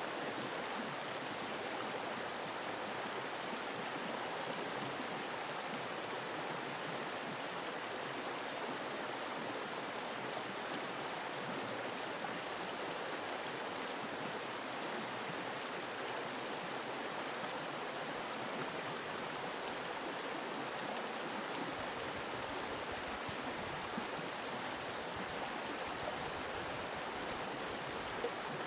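Running water from a stream, a steady even rush with no change throughout.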